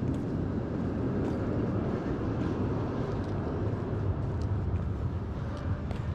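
Steady low rumble of outdoor city street ambience, picked up while walking, with faint scattered ticks.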